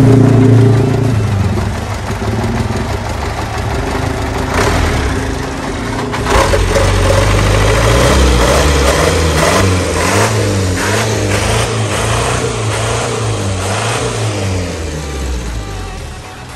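Truck's diesel engine running, its pitch rising and falling as it revs, with scattered clicks and knocks over it.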